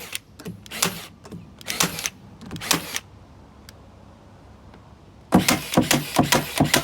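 Milwaukee M12 cordless 3/8-inch crown stapler firing staples: four sharp shots a little under a second apart, a pause of a few seconds, then a quicker run of shots.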